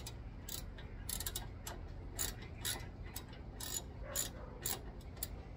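Sharp, irregular mechanical clicks from hand tools at work, roughly two a second, as a small metal wiring plate is fastened in place.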